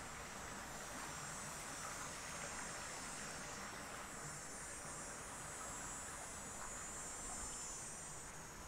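A steady high-pitched chorus of insects, over a low wash of creek water running over a small weir.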